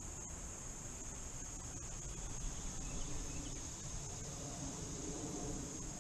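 Steady, high-pitched chorus of insects, with a low rumble under it.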